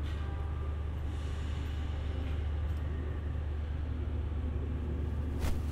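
Steady low rumble of trains standing idle at the depot, with a brief sharp click near the end.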